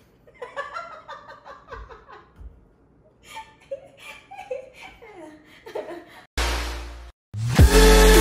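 A man and a woman laughing, in bursts of giggles and chuckles for about six seconds. Then a short rushing noise, and loud electronic dance music with a heavy bass comes in near the end.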